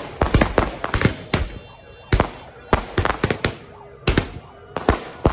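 Firecrackers going off at street level in an irregular run of sharp bangs, sometimes several in quick succession, sometimes singly with short gaps between.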